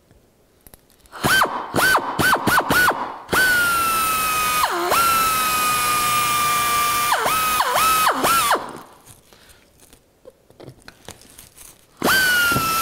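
Pneumatic air drill drilling out a rivet in aluminium sheet. It starts with five quick trigger bursts, then runs as a steady high whine for about five seconds that sags briefly as the bit bites. A few short blips follow, and one more burst comes near the end.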